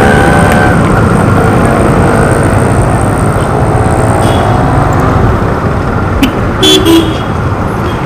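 Karizma motorcycle ridden slowly through city traffic, heard from a helmet-mounted camera: steady wind rush and road noise over the bike's engine. A vehicle horn toots briefly near the end.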